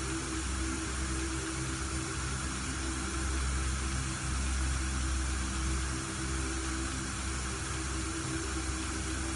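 Steady electronic sound-therapy drone: an even hiss of white-like noise over sustained low humming tones, without a beat or melody.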